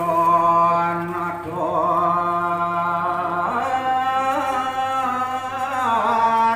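One man's voice chanting in Balinese pesantian style, amplified through a microphone: long held notes that slide slowly from pitch to pitch, with a step up about three and a half seconds in.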